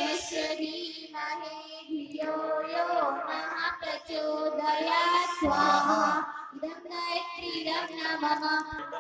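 A high-pitched voice singing a devotional song (bhajan) to musical accompaniment, the melody gliding and ornamented.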